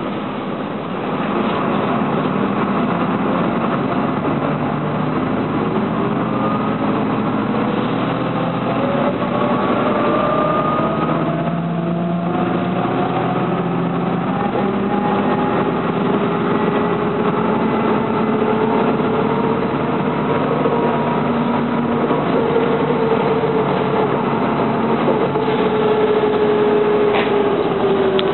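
Inside a MAN NL202 city bus under way: the diesel engine and drivetrain run steadily, with whines that climb slowly in pitch as the bus gathers speed. The sound dips briefly about twelve seconds in, and a whine falls in pitch near the end as the bus slows.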